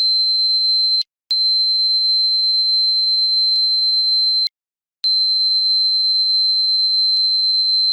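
Dog-training whistle sounding one steady high pitch in long held blasts, broken by two short gaps, about a second and four and a half seconds in.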